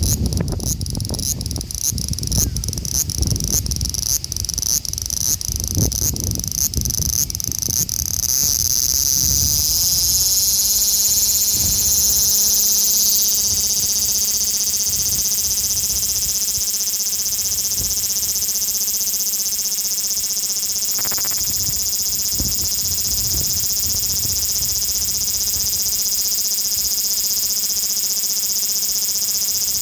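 Male large brown cicada (abura-zemi, Graptopsaltria nigrofuscata) calling. Its song starts as a rapid pulsed rasp, then about ten seconds in runs together into a loud, continuous high sizzle.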